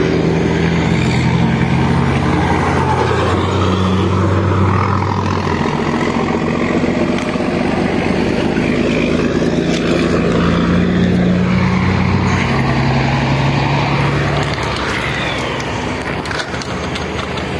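Heavy truck engines running close by, over a steady hum of highway traffic. The engine drone drops away about three-quarters of the way through.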